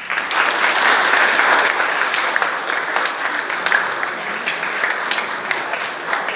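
Audience applauding: many people clapping, starting abruptly, loudest in the first couple of seconds and thinning out towards the end.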